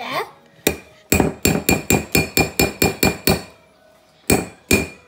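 Metal beaters of an electric hand mixer rapped against the rim of a glass mixing bowl to knock off whipped icing. One clinking knock, then a quick run of about ten at roughly four a second, then a couple more near the end, each with a short glassy ring.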